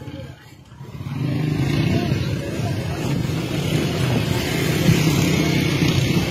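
Debris flow of mud and boulders rumbling steadily as it runs down the channel. The rumble swells in about a second in and stays loud.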